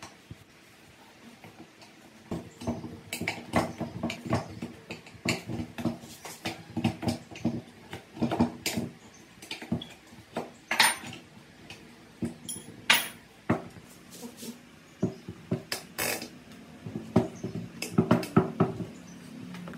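Steel tyre levers prying a knobby tyre off a rusty spoked motorcycle rim: irregular metal clinks, knocks and scrapes, starting about two seconds in.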